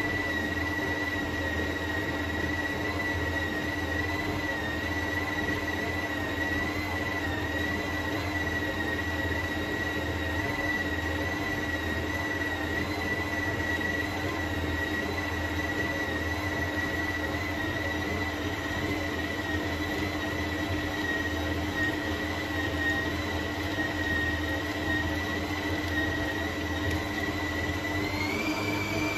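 Bosch Optimum stand mixer running with a steady high whine over a lower hum as its dough hook kneads whole-wheat bread dough. Near the end the whine steps up in pitch as the speed dial is turned higher.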